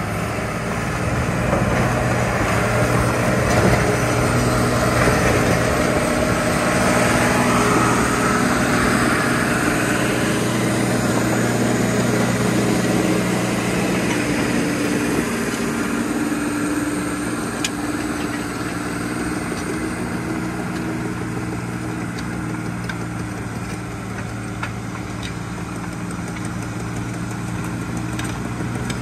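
1997 Dresser TD12-CXP crawler dozer, its Cummins 5.9 six-cylinder diesel running steadily as the machine pushes a blade-load of dirt past at close range. The engine grows louder in the first few seconds and fades in the second half as the dozer moves away.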